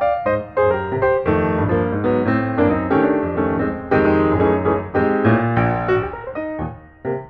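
Background piano music, a run of many quick notes that dips in loudness near the end.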